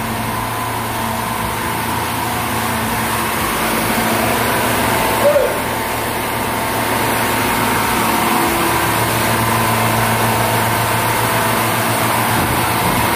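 High-pressure scuba air compressor running with a steady drone, with a brief squeak about five seconds in.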